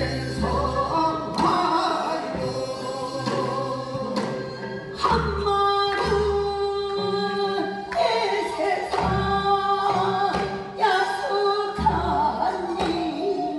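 Singing of a Korean folk song (minyo), long held notes with a wavering, ornamented voice, over instrumental accompaniment with low drum beats every few seconds.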